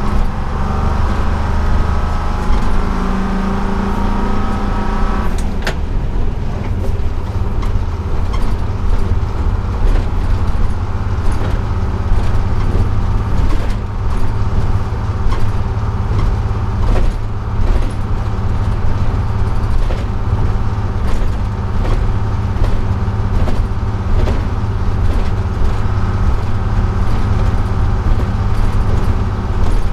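1948 GMC Silversides bus under way, heard from inside the cab: its Detroit Diesel 6-71 two-stroke diesel engine running steadily with a deep rumble and road noise. A higher tone over the first five seconds stops with a click, and the engine runs on steadily.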